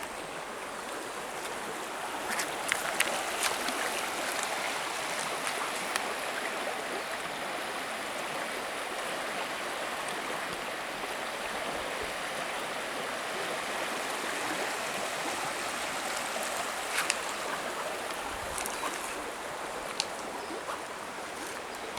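Creek water running steadily over rocks, with a few short sharp clicks about three seconds in and again near the end.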